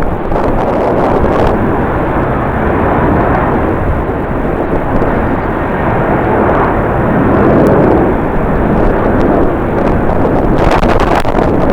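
Jet airliner engines roaring steadily, swelling slightly partway through, with strong wind buffeting the microphone, worst in a crackling gust near the end.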